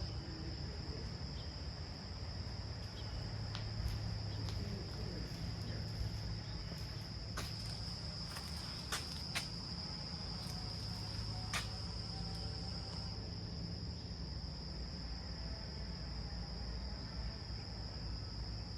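Insect chorus, a steady high-pitched trill, with a few sharp clicks in the middle.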